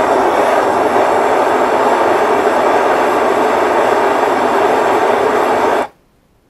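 Bernzomatic handheld torch on a yellow MAP-Pro cylinder burning with a steady rushing roar, its flame held against the top of a ceramic fiber blanket. The roar cuts off suddenly just before the end as the torch is shut off.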